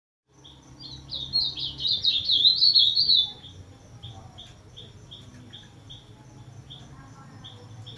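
Caged ultramarine grosbeak (azulão) singing: a quick warbling phrase of about three seconds, followed by a string of short single notes, about two or three a second.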